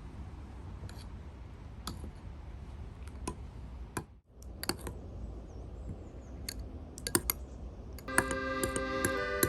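Scattered light clicks and taps over a low background rumble. About eight seconds in, music with sustained bell-like tones begins.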